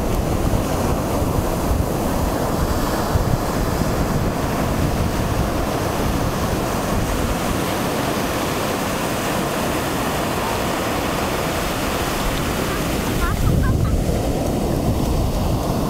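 Ocean surf breaking and washing up the shore in a steady roar, with wind buffeting the microphone; it swells louder briefly near the end.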